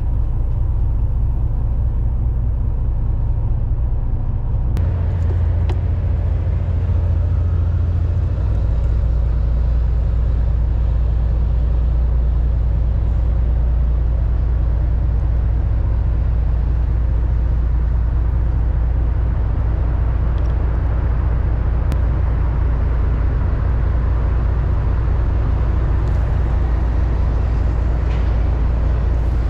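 A steady, loud low rumble with no speech.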